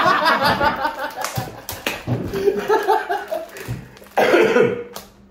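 A few people laughing and chattering, with some short sharp knocks in the pause between, between one and two seconds in.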